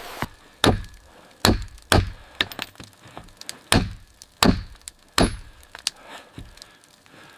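A series of irregularly spaced wooden knocks and thunks, about six strong ones with a low thud, and fainter ticks between them, dying away over the last couple of seconds.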